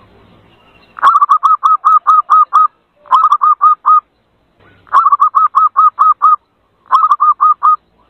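Zebra dove (perkutut) calls: rapid runs of short, clipped notes, about five a second. They come in four bursts separated by short pauses, starting about a second in.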